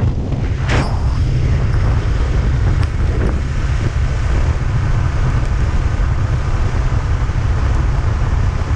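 Steady wind buffeting on the microphone of a camera riding on a moving motorcycle, with the rumble of the ride underneath.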